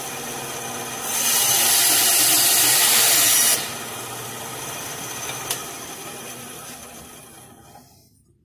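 Bandsaw running, its blade cutting through a 3/4-inch square scrap stick of wood about a second in, with a louder hissing rasp for about two and a half seconds until the cut is through. After the cut it runs on, there is a click, and the saw winds down to a stop near the end.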